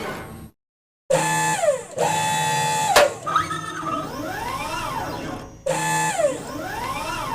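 Electronic sci-fi UFO sound effect: warbling pitched tones that slide down and then swoop up and down in waves. It cuts out abruptly about half a second in and starts again, with a sharp click about three seconds in.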